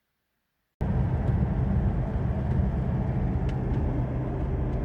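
PK/PJ-series Ford Ranger/Mazda BT-50 diesel ute driving, its engine and road noise steady and strong low down, starting abruptly about a second in. It is pulling normally with a new MAP sensor fitted, out of limp mode.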